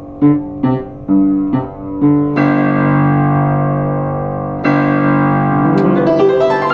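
Yamaha JU109 upright piano being played: a few single notes, then a chord held for about two seconds, a second chord, and quicker notes near the end.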